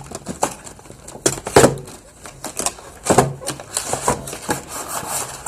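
Pokémon card packaging being handled and opened: irregular rustling and sharp clicks of plastic wrapper and cardboard, with a little quiet mumbled speech.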